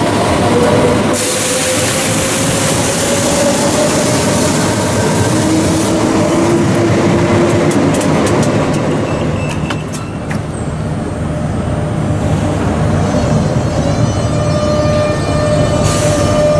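Renfe 447-series electric multiple unit moving slowly through the station, with a steady electric whine that drifts slowly in pitch over the rumble and hiss of the train. A few sharp wheel clicks come about two-thirds of the way through.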